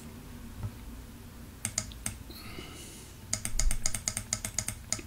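Clicks from working a computer's mouse and keys: a few single clicks, then a quick run of about eight clicks a second.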